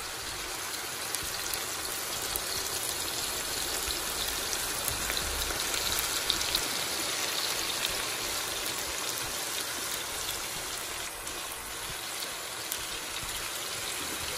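Thin chicken fillets sizzling in hot avocado oil in a large frying pan on maximum heat, browning: a steady hiss with many fine crackles throughout.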